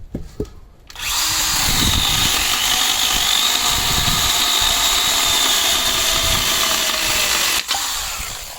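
Stihl battery-powered tool's electric motor switched on about a second in, running steadily at full speed with a high whine, then spinning down near the end.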